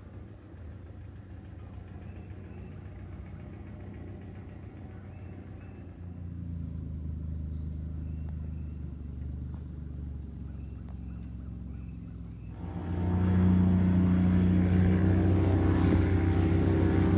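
Airboat's aircraft-style engine and propeller running with a steady low drone. It grows louder about six seconds in, then surges much louder and harsher near the end.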